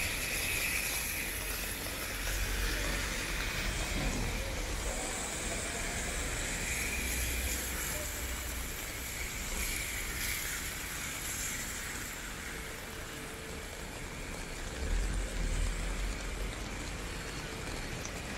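Rain falling on a city street, a steady hiss, with road traffic going by as low rumbles that swell and fade.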